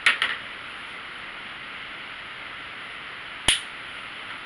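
Steady background hiss with a few short sharp clicks, a little cluster near the start and one more about three and a half seconds in, from hands handling plastic hair clips while a new section of hair is taken out.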